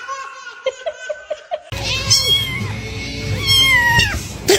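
A domestic cat meowing: two loud, drawn-out meows that fall in pitch, about two seconds and three and a half seconds in. Before them, a short stretch of music.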